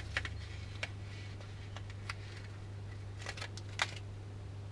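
Scattered light clicks and ticks of small fishing tackle being handled, as a crimp is picked out to thread onto monofilament line. About half a dozen uneven clicks over a low steady hum.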